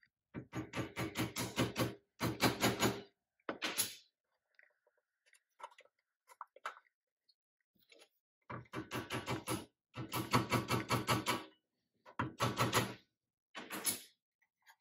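Bursts of rapid clicking chatter, about ten clicks a second and up to a second and a half at a time, as a white plastic rod is worked against the pressed-steel body of a Nylint toy Ford Bronco at its base. The bursts stop for a few seconds in the middle.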